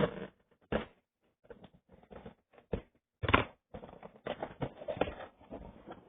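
Packaging of a toy figure being handled and opened: a run of irregular clicks, taps and rustles, loudest about three seconds in.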